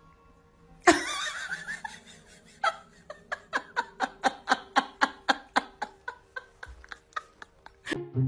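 Laughter: a sudden loud outburst about a second in, then a long run of short, evenly spaced bursts of laughing, about three to four a second.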